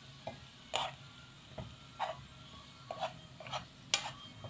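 Spoon stirring and scraping a chunky turkey and pepper filling in a non-stick frying pan while it sizzles: a series of short scrapes, irregular, the loudest near the end.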